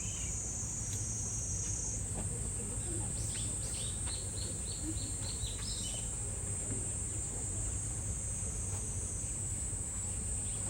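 Cicadas singing in a steady, high continuous drone. Between about three and five and a half seconds in, a bird gives a quick run of about eight short, repeated falling notes, over a low rumble.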